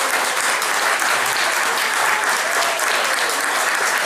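Wedding guests applauding and cheering, a steady loud clapping of many hands.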